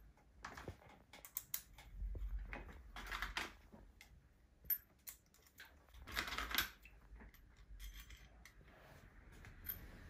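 Small steel screws clicking as they are set into holes in a metal flange and turned in by hand with an Allen key, with light metal taps and a few brief scraping rustles.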